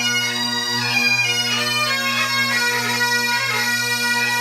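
Great Highland Bagpipe playing a tune: the chanter moves through the melody note by note over the steady, unbroken hum of the drones.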